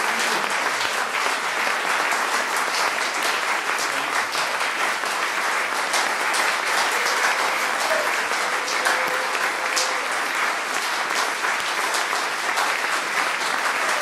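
Audience applauding, with many hands clapping in a steady, even stream.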